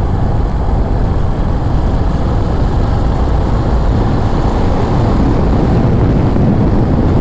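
Wind rushing over the microphone of a moving motorcycle: a steady, loud, low rumble.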